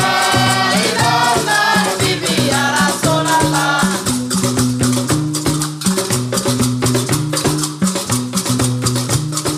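Gnawa-style devotional music with a dense, rapid clatter of metal qraqeb castanets over a repeating plucked bass line from a long-necked lute. Sung voices carry the tune for the first few seconds, then the instruments play on alone.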